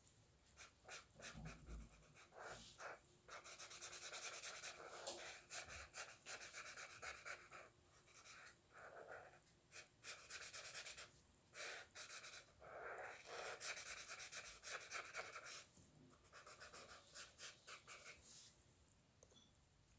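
Drawing strokes: a pen or pencil scratching across a drawing surface in quick runs of a second or two, with short pauses between.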